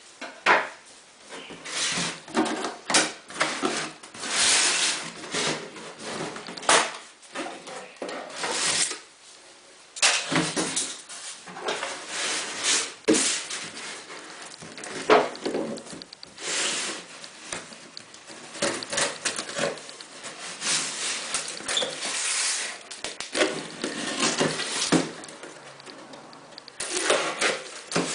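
Hands unpacking a smartphone's box: packaging rubbing, sliding and rustling, with many short irregular clicks and knocks.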